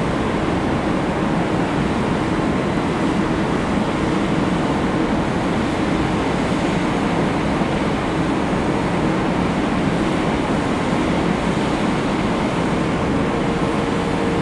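Steady rumble of a tugboat's and ship's engines with churning propeller wash, as one even noise with a faint steady hum running through it.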